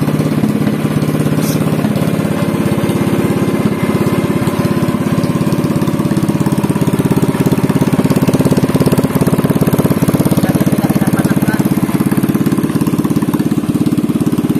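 Motoyama SPE 500 Gold Marine 500 cc single-cylinder OHV engine running steadily through a bare open exhaust pipe, with rapid even firing pulses.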